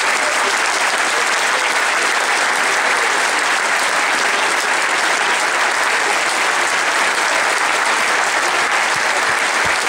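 A large audience applauding steadily and densely.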